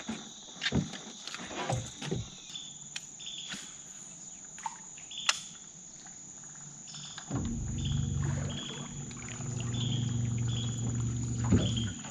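Crickets and other insects keep up a steady high-pitched drone with short repeated chirps, and a few scattered knocks sound from the aluminium jon boat in the first half. About seven seconds in, a low steady hum starts up, the boat's electric bow trolling motor running.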